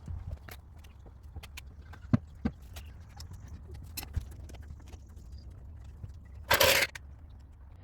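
Scattered metal clinks and knocks of hand work on a car's wheel and jacking gear over a low steady hum, with one short loud burst of noise about six and a half seconds in.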